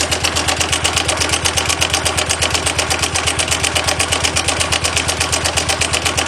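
An engine or motor running steadily with a rapid, even pulse of about a dozen beats a second.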